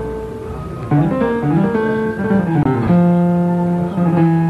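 Instrumental music with a plucked guitar: a held note, then a quick rising run of notes, then low notes struck and held, twice.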